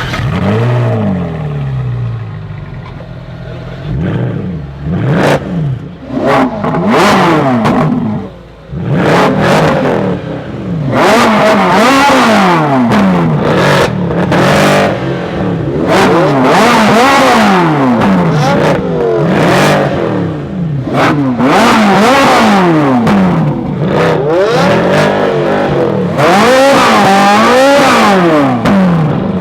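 Ferrari 458 Italia 4.5-litre flat-plane V8 and Mercedes C63 AMG Black Series 6.2-litre V8 being revved hard while stationary: repeated quick blips, each rising and falling in pitch. The first several seconds hold a settling idle and a few spaced revs, then the revs come about once a second, overlapping, for the rest.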